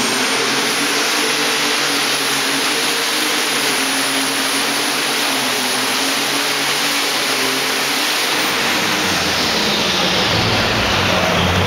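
Alcohol-fuelled Ford pulling tractor engine running at full throttle under heavy load as it drags the weight transfer sled, with a high whine over it. The whine stops about eight seconds in and the engine note changes as the pull ends.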